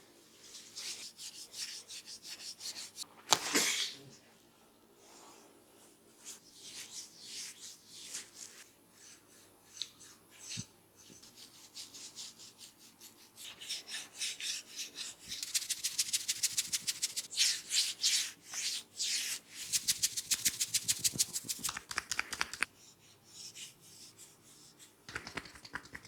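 Hands rubbing, patting and stroking a person's head, hair and neck in a massage, in many short strokes. There is one louder sharp snap about three and a half seconds in, and a fast regular run of strokes in the second half.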